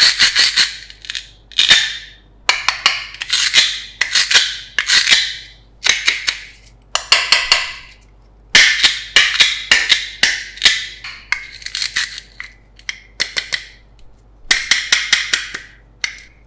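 Velcro ripping again and again as the two halves of a plastic toy cutting watermelon are pulled apart and pressed back together: about a dozen rasping tears, with sharp plastic clicks among them.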